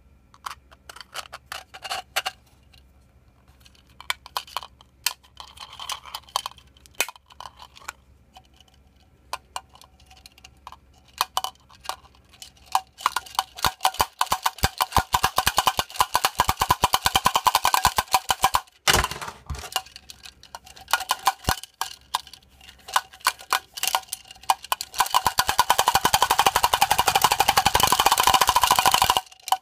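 3D-printed plastic rattle drum twirled back and forth on its handle, its strikers clacking against the drumheads. Scattered clicks at first, then two long spells of fast, even clacking, the second stopping abruptly near the end.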